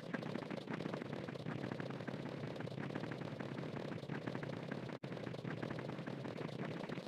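Harsh, dense crackling noise packed with rapid clicks, the sound of a soundtrack heavily distorted by digital effects. It drops out for an instant about five seconds in.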